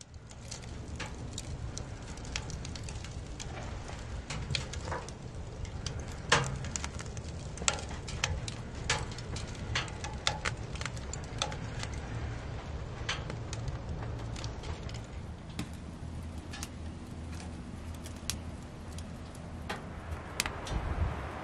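Split logs burning in a wood-burning stove: irregular sharp crackles and pops over a low, steady rumble.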